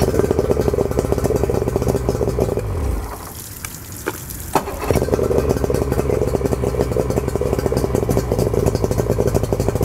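A 2001 Yamaha 60 hp two-stroke outboard motor idling in neutral with a fast, even pulse. About three seconds in the engine note sinks and goes quieter, then picks back up about five seconds in and runs steadily again.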